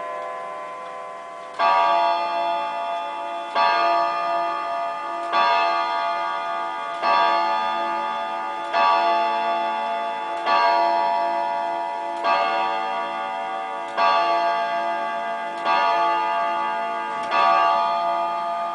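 Jawaco German carillon wall clock striking the hour after its tune: ten even strokes about 1.7 s apart, each a ringing chord of several tones that fades into the next. The pendulum ticks underneath.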